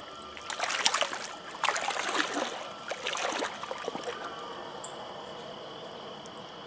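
Water splashing in three bursts during the first three and a half seconds, a hooked trout thrashing at the surface as it is brought in. The stream runs steadily underneath.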